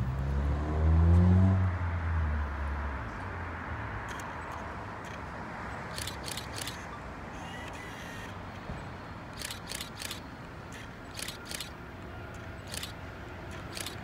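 A vehicle's engine or motor rising in pitch and then fading over the first few seconds. After it, a low steady background with several quick groups of short, sharp high clicks.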